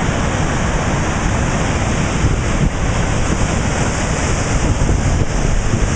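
Waterfall pouring, a steady rush of falling water, with wind buffeting the microphone.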